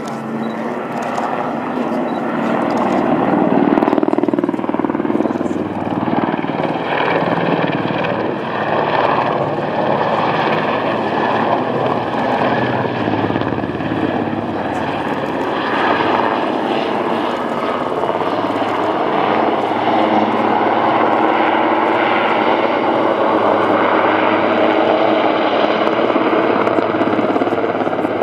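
Eurocopter Super Puma military helicopter flying a low display. Its rotor and turbine engines make a steady, loud noise that swells about four seconds in.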